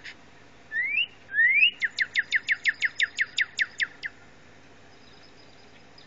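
Northern cardinal song played through a computer's speakers: two rising whistles, then a quick run of about a dozen short down-slurred notes that stops about four seconds in.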